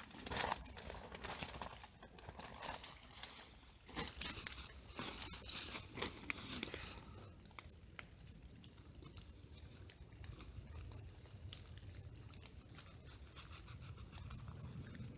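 Close rustling and crinkling in irregular bursts for the first half, then a quieter, light patter of small ticks.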